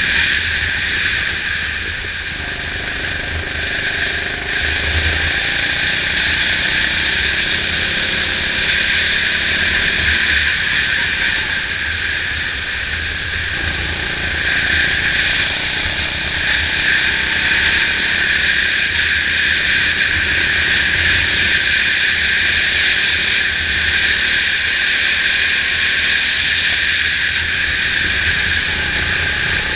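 Go-kart engine running at speed on a track lap, its pitch rising and falling through the corners, heard from a camera mounted on the kart.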